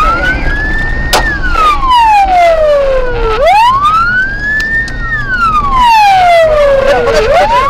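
Police car siren on a slow wail, rising over about two seconds and falling back, about two full cycles, with engine and road noise from the moving car underneath. A single sharp click cuts through about a second in.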